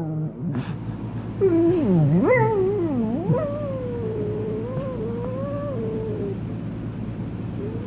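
A cat yowling: one long drawn-out call that swoops low and high in pitch, then wavers for a few seconds before trailing off, with a short rising call near the end.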